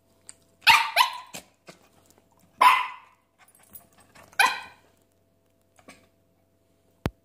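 Havanese dog barking to demand food: two quick barks about a second in, then single barks at about two and a half and four and a half seconds, with a few softer yips between. One sharp click near the end.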